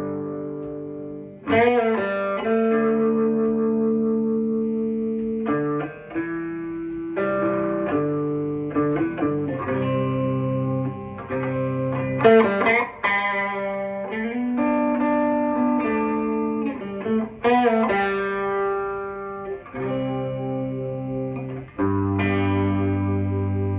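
Electric guitar with humbucking pickups played through a Fender Tone Master Deluxe Reverb amp fitted with an Eminence Alessandro 12-inch speaker in a vintage Deluxe Reverb cabinet. Chords are struck and left to ring, changing every second or two.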